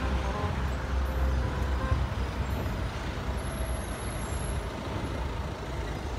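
Road traffic: a passing motor vehicle's low engine rumble, loudest in the first two seconds and then easing off into steady traffic noise.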